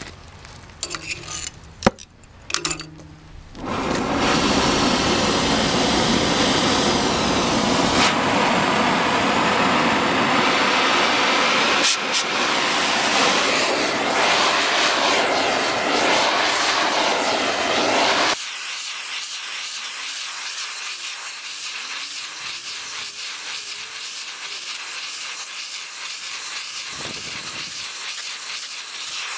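Oxy-fuel cutting torch working on the steel of an excavator bucket ear. A few knocks in the first seconds, then about four seconds in a loud steady hiss of the torch starts. It drops suddenly to a quieter steady hiss about eighteen seconds in.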